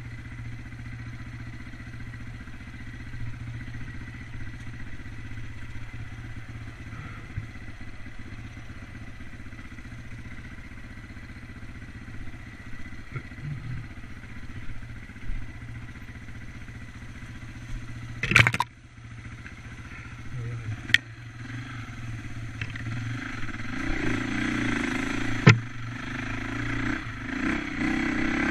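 Off-road motorcycle engine running steadily on a forest trail, with a sharp knock about two-thirds of the way through. The revs rise and the engine gets louder in the last few seconds, with another sharp knock.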